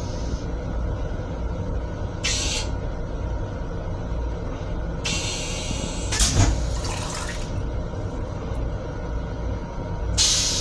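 Metro-North M7 railcar toilet flushing: a series of hissing bursts of rinse water and air into the stainless steel bowl, the loudest about six seconds in, with another starting near the end.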